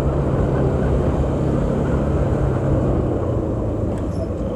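Motorcycle engine running at a steady pace while riding, a constant low engine note over a dense rumble of wind and road noise.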